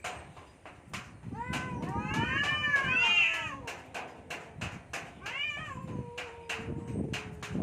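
Cats caterwauling at each other in a fight standoff: wavering yowls that rise and fall, starting about a second in, a shorter yowl later, then a long, low, drawn-out moan near the end. A run of sharp clicks sounds in the background throughout.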